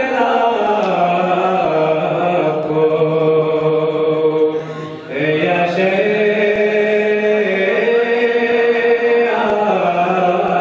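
A young man's solo voice chanting a Balti qasida, a devotional Shia poem, in long held notes, with a short break for breath about five seconds in.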